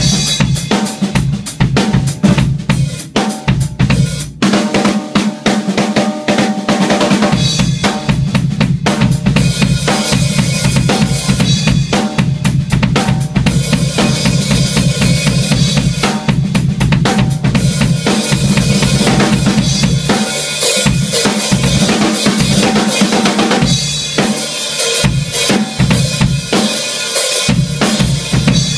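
Acoustic drum kit played solo: fast, dense beats on bass drum and snare with rimshots, hi-hat and cymbals, with no other instruments.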